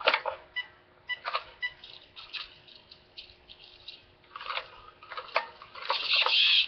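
Scattered clicks and knocks from a hobby RC transmitter and truck being handled, over a faint steady hum. Near the end a louder hissing rush comes in.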